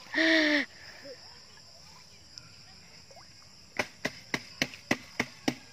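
A loud, drawn-out shout at the start, then a faint steady chirring of insects. From a little before the four-second mark comes a run of sharp taps, about three or four a second.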